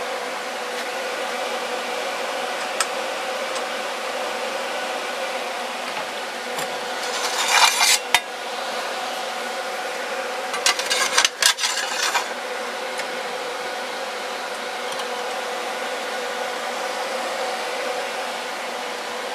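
An aluminum plate being shifted and scraped against a steel machine vise on a drill press table, in two short spells about seven seconds in and again around eleven seconds, over a steady motor hum.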